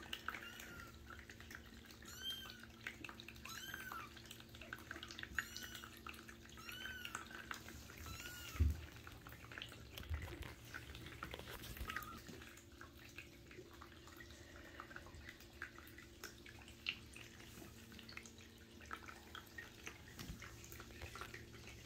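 Newborn kitten mewing: short, high-pitched cries that rise and fall, repeated about every second and a half for the first nine seconds or so. After that only faint small clicks remain. There is one low thump a little past the middle.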